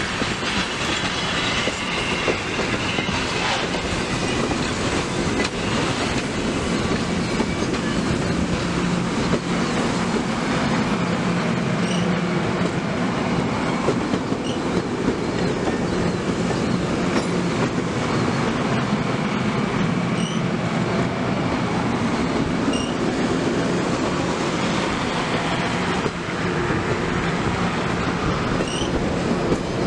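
Passenger cars of a train rolling past close by: a steady rumble and rattle of steel wheels on the rails.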